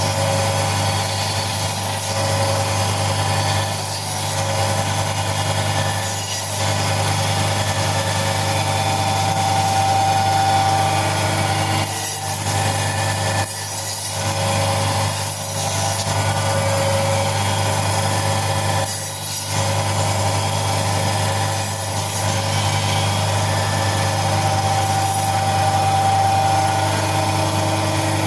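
Electric chicken cutting machine running with a steady motor hum, dipping briefly a few times.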